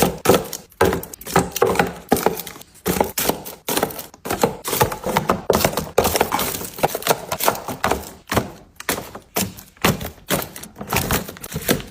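Small objects being handled and set down in quick succession: a busy run of light clicks, taps and knocks, several a second, with rustling between them.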